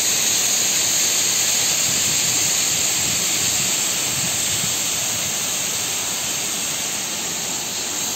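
Roadside waterfall in heavy spate after rain: the water rushes down with a steady, loud hiss.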